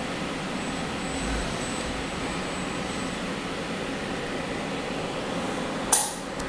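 Steady fan and ventilation noise from laboratory robot equipment, with one sharp click near the end.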